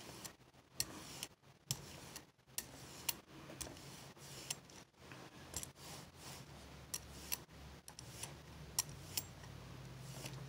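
Soft rubber brayer rolling back and forth through metallic blue paint on a gel plate, spreading it out: faint irregular clicks and ticks, about one or two a second.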